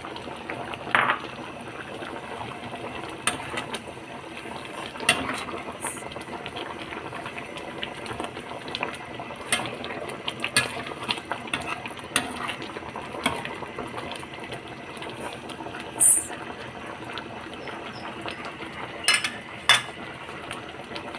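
Chicken curry simmering in a wok with a steady bubbling hiss, while a spatula stirs it and knocks and scrapes against the pan in scattered sharp clicks and clacks, the loudest about a second in and again near the end.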